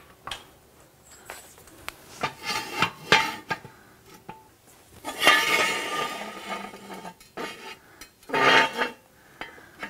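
Steel jack stands and a floor jack clanking and scraping on concrete as the stands are set under a raised car. There are several ringing metal clanks, then a longer rattling scrape about halfway through, and another clatter near the end.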